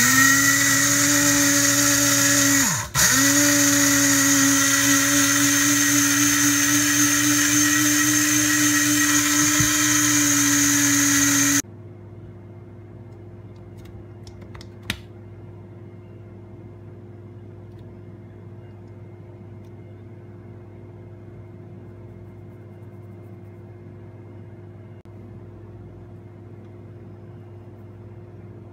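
Electric blade spice grinder running, its motor spinning up and whining at a steady pitch as it grinds whole coriander and cumin seeds into powder. The whine dips and picks up again about three seconds in as the button is let go and pressed again, and it stops suddenly after about eleven seconds; a single click follows a few seconds later.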